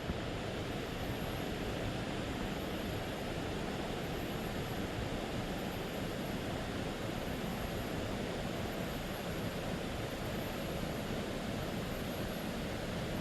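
River water running steadily over rocks, an even rushing sound, with a faint high insect buzz pulsing every second or two.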